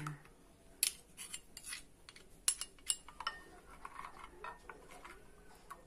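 Metal spoon stirring runny batter in a bowl, with light, irregular clinks as it knocks the bowl's side.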